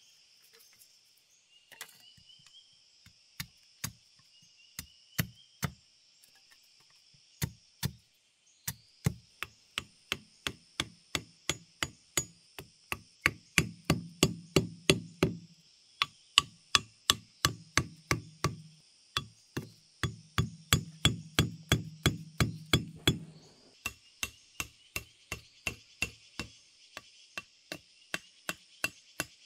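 Repeated hammering blows on a stake being driven into a packed clay bank: a few scattered strikes at first, then a steady run of about two or three blows a second, heaviest in the middle. Insects drone steadily behind.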